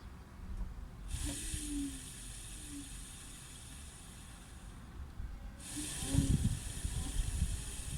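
Citroen C3's electric radiator cooling fan running with a steady hiss, switching on abruptly about a second in, cutting out for a moment past the middle and starting again, over a low rumble.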